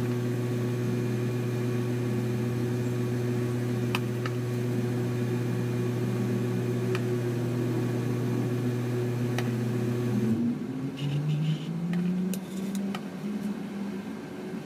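Electric cake turntable motor humming steadily while a metal scraper smooths the cream on the spinning cake, with a few faint clicks. About ten seconds in, the hum drops suddenly and then rises back up in pitch as the motor's speed changes.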